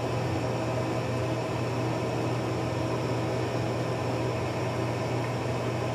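Steady low hum with an even hiss: background room noise from a fan or air-handling source.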